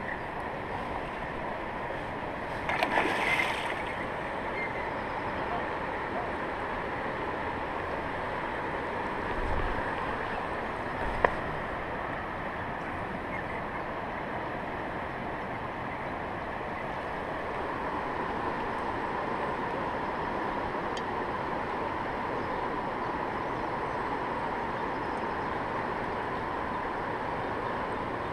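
Rushing water of the Gaulfossen rapids on the Gaula river, a steady even roar, with a brief louder noise about three seconds in and a sharp click near the eleven-second mark.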